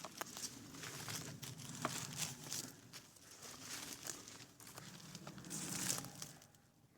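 Irregular rustling and crunching of dry leaves and brush underfoot, loudest about two seconds in and again near six seconds, fading out just before the end.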